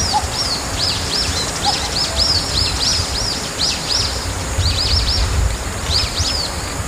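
Wild birds chirping: a rapid, continuous run of short, arched high chirps, several a second, over a steady low background rumble.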